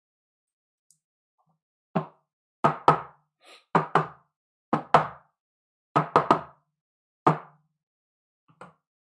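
About a dozen sharp knocks on a tabletop at uneven spacing, some in quick pairs and triples, as trading cards and their packaging are handled and set down during a card break.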